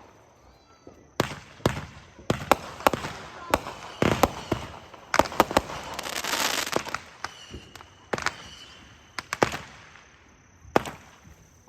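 Consumer firework cakes, a Dominator Helion and then a Dominator Sparta, firing: an irregular series of sharp bangs from aerial shells bursting. There is a hissing, crackling swell about two-thirds of the way through.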